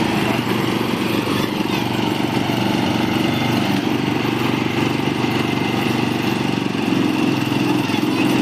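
Motor-driven sugarcane juice crusher running with a steady mechanical drone.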